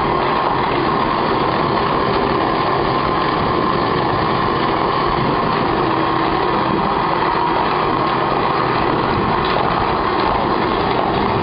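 Many electric sewing machines running together as an ensemble, a dense, steady mechanical whir that goes on without a break.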